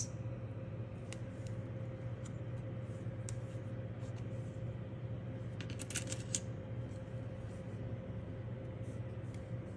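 Steady low hum with a few light plastic clicks, and a short cluster of clicks about six seconds in as a plastic nail swatch stick is set down on a table.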